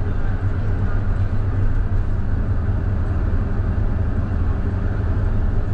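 Scania K320IB bus's diesel engine running steadily, a low rumble with a haze of road and running noise.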